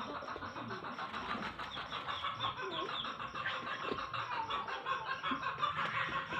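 Birds chirping and chattering thickly with fowl-like clucks, over a fast, even high pulsing in the background.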